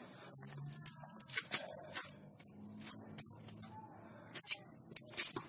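Scattered sharp clicks and light taps over a faint low hum, a few in a quick pair near the end.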